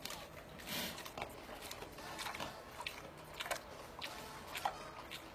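Close, wet chewing and lip-smacking as ice cream is eaten, heard as a string of irregular soft clicks and smacks.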